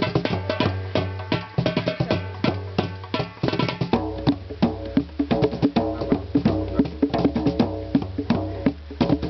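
Music with fast, dense hand-drum percussion over a steady low bass line; the pitched accompaniment changes about four seconds in.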